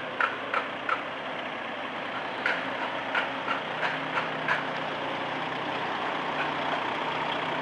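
Heavy vehicle engine running steadily at idle, with runs of short sharp ticks, about three a second, near the start and again around the middle.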